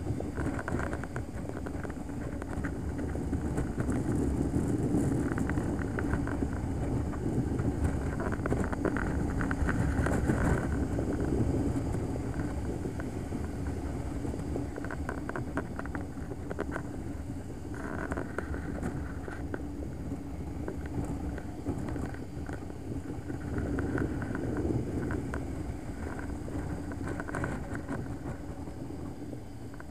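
Motorcycle running at road speed, its engine drone mixed with wind rushing over the microphone; the level swells and eases slowly.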